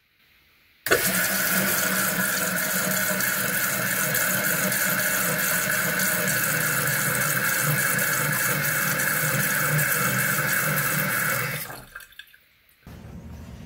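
Water rushing hard and steadily, starting suddenly and dying away quickly about eleven seconds later.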